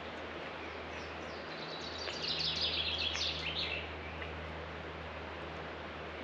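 A songbird sings one quick phrase of high chirping notes, falling in pitch, about two seconds in, over steady outdoor background noise with a low hum.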